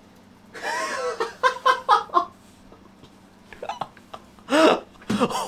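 A man's excited vocal sounds: a drawn-out exclamation about half a second in, then a quick run of laughter, about five short 'ha's in under a second, and a loud exclamation again near the end.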